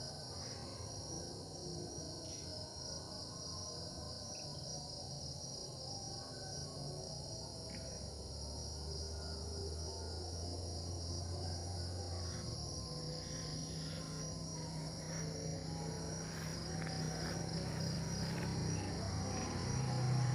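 Crickets chirring in a steady, high, finely pulsing chorus. A low steady hum joins underneath in the second half.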